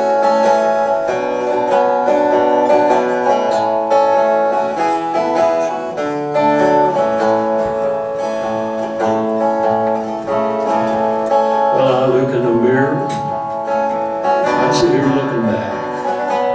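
Steel-string acoustic guitar playing an instrumental break between verses of a country-folk song, with a man's voice coming in over the guitar about twelve seconds in.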